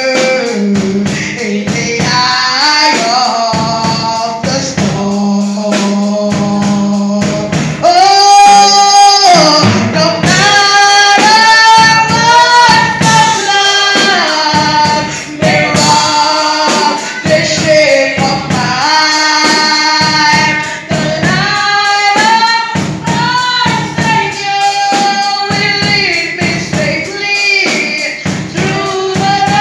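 Gospel worship singing, women's and a man's voices together, one voice amplified through a handheld microphone, over a steady rhythmic percussion beat.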